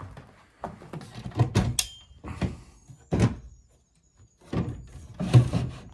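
Wooden thunks and knocks in three groups: a cluster about a second in, one strong single knock about three seconds in, and another cluster near the end, like old wooden furniture or floorboards being handled or stepped on.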